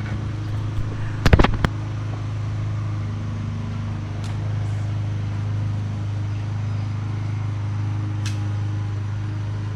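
Electric trolling motor on a bass boat humming steadily at a constant speed. A few sharp knocks come about a second and a half in.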